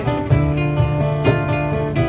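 Music: an acoustic guitar strumming chords in an instrumental passage, with no singing.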